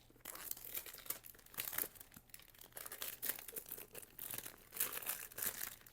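Packaging crinkling and tearing in quick, irregular rustles as a perfume box is unwrapped and opened by hand.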